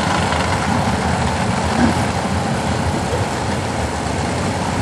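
Drag-racing engines idling as the cars creep forward to stage at the starting line, a steady low rumble.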